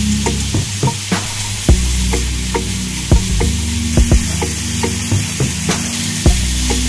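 Mixed vegetables sizzling in oil in a frying pan, with irregular clicks and knocks as a silicone spatula stirs them and taps against the pan.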